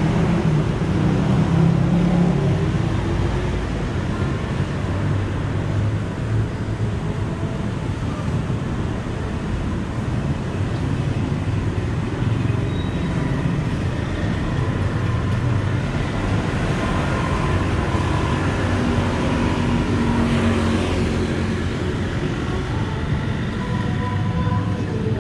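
Steady road traffic noise from vehicles passing on a busy city street.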